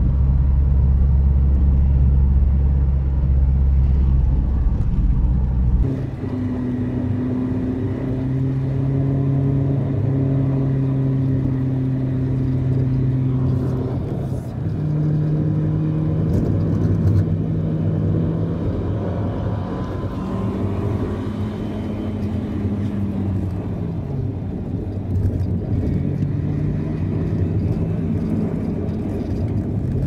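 A car engine and road noise heard from inside the cabin while driving. A heavy low rumble dominates for about the first six seconds. After that the engine's hum is clearer, its pitch stepping up and down as the car speeds up and slows, falling away a little past two-thirds of the way through and rising again near the end.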